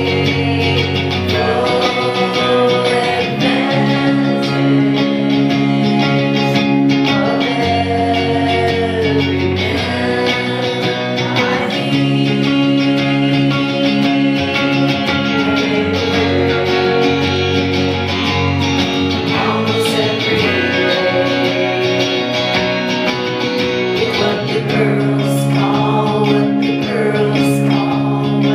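A woman singing live while strumming an electric guitar in a rock song.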